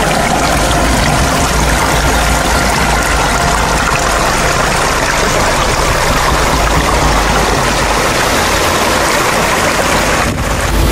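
Steady rush of a small waterfall pouring into a rock pool, with a deep low rumble under the splashing.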